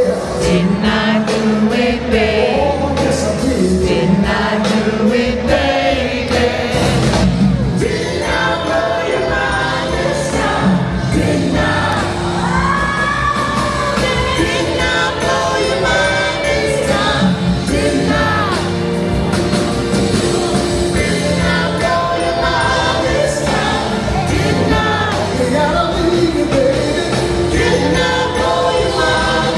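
A soul song playing, with a lead singer and a backing chorus of voices over a full band.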